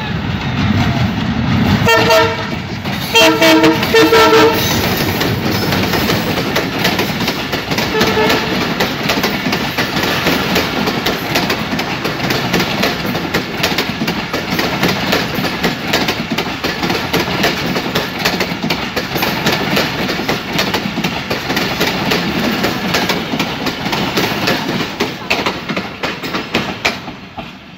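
Diesel-hauled express train passing close by. The locomotive's horn sounds a short blast about two seconds in, a longer broken blast a second later and a brief toot near eight seconds. Then the passenger coaches roll past with a steady rumble and wheels clattering over rail joints and points, fading near the end.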